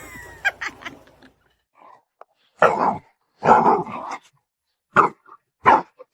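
A dog barking, a few separate barks with short pauses between them, the second of them longer.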